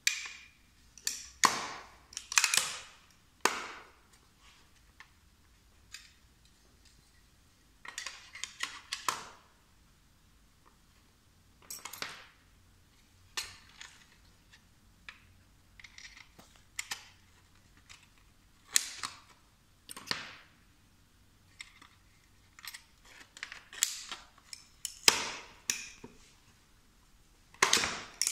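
Aluminium snap frame being handled and pressed, giving irregular sharp clicks and knocks, some in quick clusters, with quiet gaps between them.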